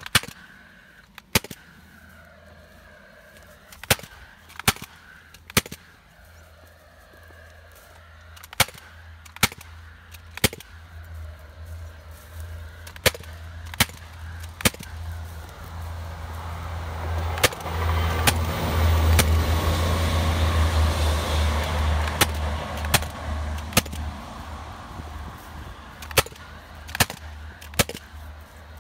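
KMR cordless gas-powered fencing stapler firing staples: sharp cracks, often in quick runs of two or three shots under a second apart. A low rumble swells through the middle and fades again.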